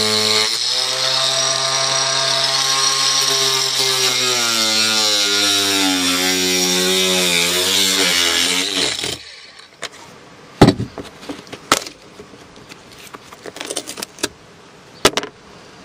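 Angle grinder running as it grinds a raised fibreglass ridge flat on a boat deck, its pitch sagging as it is pressed into the work, then switched off and stopping about nine seconds in. After that come a few sharp knocks and scrapes.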